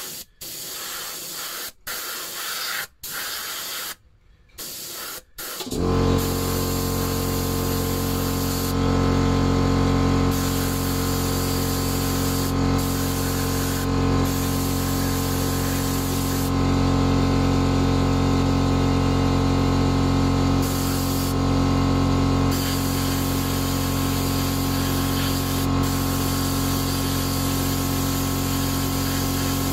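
Airbrush spraying paint in short hisses with brief stops. About six seconds in, a louder steady motor hum starts, most likely the airbrush's compressor running, and carries on while the spray hiss comes and goes over it.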